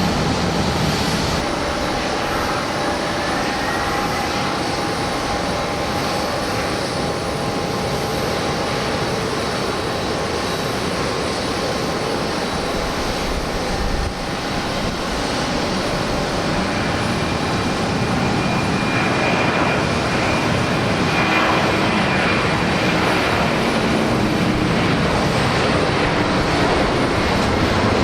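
Large jet airliner's engines at takeoff power: a loud, steady rush of jet noise with a few thin steady whines. It dips briefly about halfway through, then grows somewhat louder.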